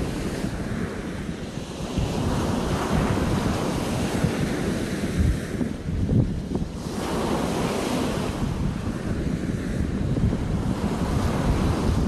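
Sea waves breaking and washing up a beach, the surf swelling and easing every few seconds, with wind rumbling on the microphone.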